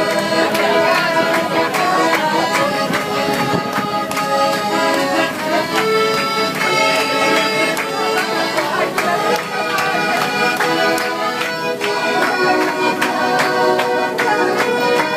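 Lively folk dance music led by an accordion, with a steady, quick beat.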